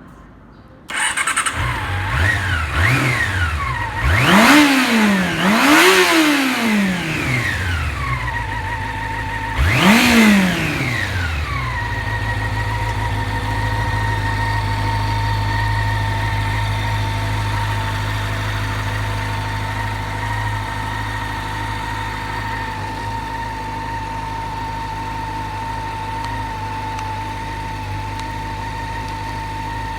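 Honda CB400 Super Four (NC31) inline-four motorcycle engine starting about a second in after long storage. It is blipped several times, with two big revs and then one more, before settling into a steady, quiet idle with no abnormal noises.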